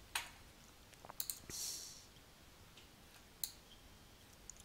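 A few faint computer mouse clicks, spaced a second or two apart, from colours being picked on screen. There is a short soft hiss about one and a half seconds in.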